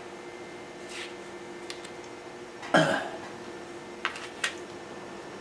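A short cough a little past halfway, then two light clicks as a thin Kapton solder-paste stencil and small circuit boards are set down on the workbench, over a steady faint hum.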